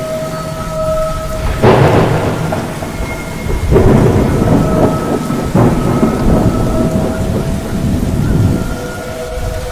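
Thunderstorm: steady heavy rain with loud thunder cracks that break in suddenly and roll off, about two seconds in, near four seconds and near six seconds. Faint steady whistling tones run underneath.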